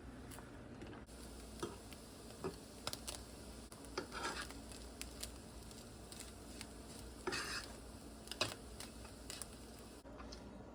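Utensil stirring and scraping in a pan of iguana eggs cooking with raw milk, over a faint frying sizzle. Light clicks and scrapes come irregularly, with two longer scrapes about four and seven seconds in.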